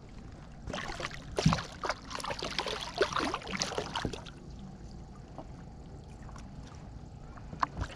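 Water splashing and sloshing, thick for about three seconds from about a second in, then easing to a low steady wash: a hooked catfish thrashing at the surface as it is pulled in.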